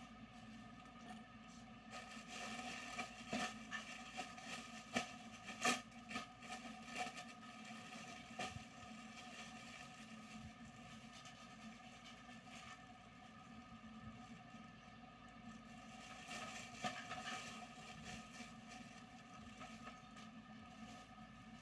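Plastic packaging rustling and crinkling as a parcel is handled and opened, in bursts, over a steady electrical hum.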